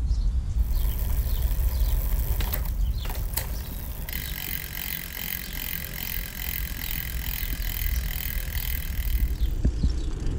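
Noise from a mountain bike ride: wind rumbling on the camera microphone, with a steady high-pitched hissing buzz that starts about half a second in and cuts off abruptly near the end. A few sharp clicks come around three seconds in.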